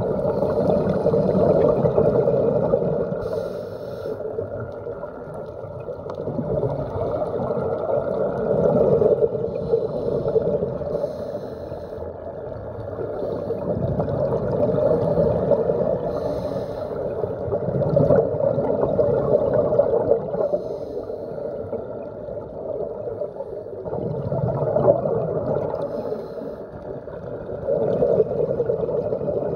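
Scuba regulator breathing and exhaled bubbles, heard muffled underwater through a phone's waterproof case, swelling and fading every few seconds.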